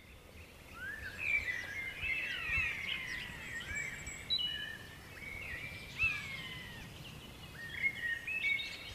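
Several songbirds singing at once: a woodland chorus of overlapping whistled phrases and short chirps, many of them gliding up or down in pitch, fading in over the first second.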